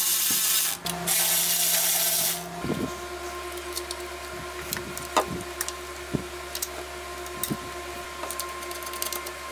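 A loud steady hiss fills the first two seconds or so. Then come scattered light clicks and taps of hands fitting parts and wiring in a car's engine bay, over a steady hum.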